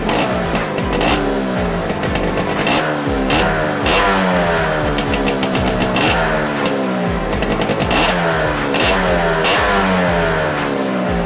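Modenas Dinamik 120 motorcycle engine revved over and over, its pitch falling back after each blip of the throttle, with sharp cracks at irregular moments.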